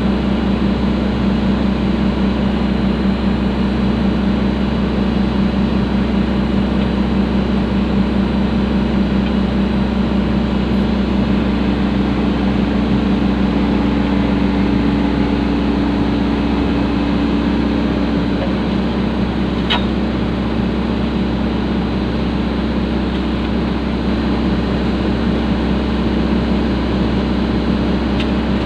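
Excavator's diesel engine running steadily at constant speed, with a higher steady hum joining for several seconds in the middle and a single sharp click a little after that.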